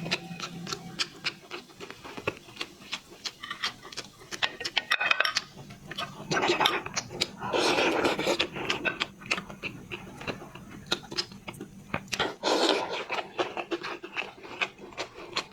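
A large brown crab being handled and its shell pried open: a run of sharp clicks and scrapes of shell, with heavier cracking and scraping around the middle and again near the end.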